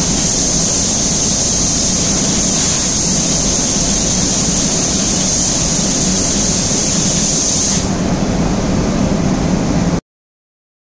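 Steady hiss of three compressed-air spray guns atomizing paint on an automatic reciprocating spray-painting machine, over a steady low hum of the machine. The high hiss stops about eight seconds in, leaving the hum, and all sound cuts off abruptly about two seconds later.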